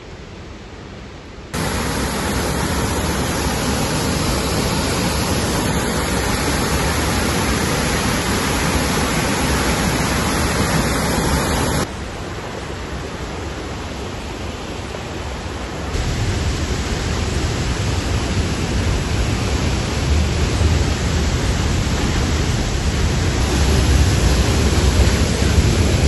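Steady rushing of a whitewater creek tumbling over rocks. It jumps louder about a second and a half in, drops back at about twelve seconds and rises again at sixteen seconds, with more low rumble in the last part.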